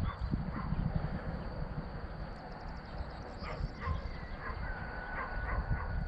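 A string of short animal calls repeating at irregular intervals over a steady low rumble. Near the end a thin, steady whistle-like tone joins in.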